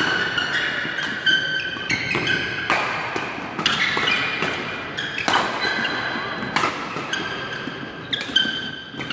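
Badminton rally: rackets striking the shuttlecock with sharp cracks roughly once a second, with shoes squeaking on the court in between.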